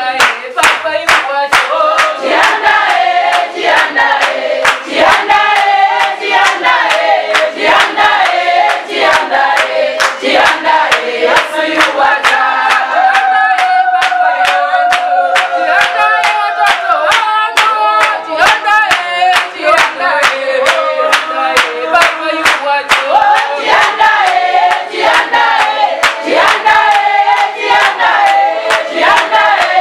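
A church congregation singing a praise and worship song together, clapping hands in a steady beat of about two claps a second.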